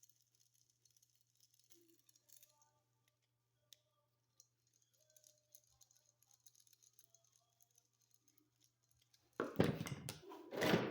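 Faint clicks and small squeaky scrapes of the unused terminal screws on a wall receptacle being screwed down. Near the end come two louder, noisy scraping bursts of handling.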